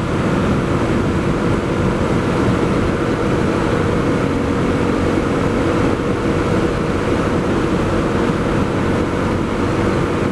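Honda CRF250L's single-cylinder four-stroke engine running at a steady cruising speed, with wind rush over the helmet-camera microphone.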